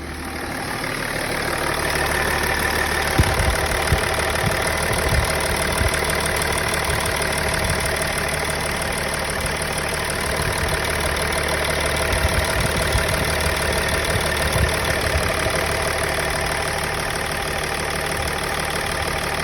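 Car engine idling unevenly, with irregular low thumps breaking into the steady running: a misfire that shows up with the mass air flow sensor plugged in. The sound builds over the first two seconds, then holds.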